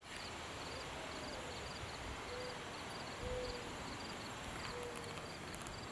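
Rural outdoor ambience: a high chirping repeated in quick triplets about twice a second, with a few soft, brief low hooting notes and a faint low rumble underneath.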